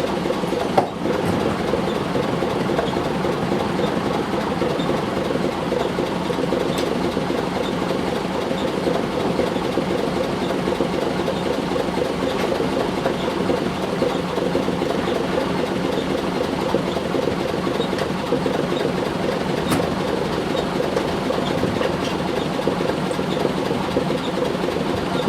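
An engine running steadily, a constant drone with one sharp click about a second in.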